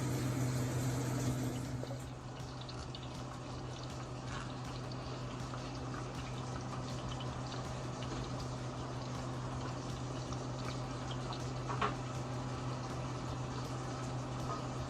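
Pots cooking on a stove: faint bubbling and scattered light crackles over a steady low hum, a little quieter from about two seconds in.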